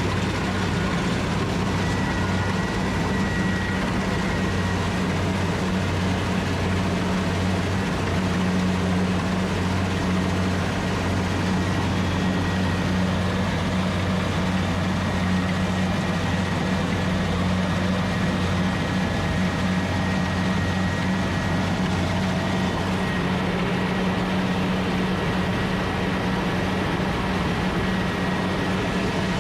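Rice combine harvester's engine running steadily at a constant speed, with a faint high whine above it.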